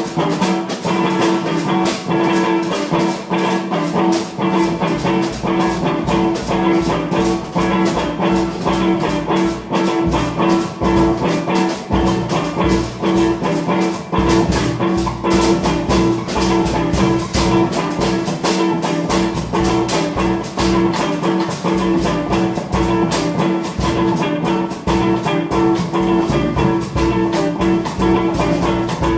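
Live duo of drum kit and guitar playing an improvised, jazz-leaning piece: a guitar sustaining a repeated note while the drums keep up a fast, dense pattern of strokes.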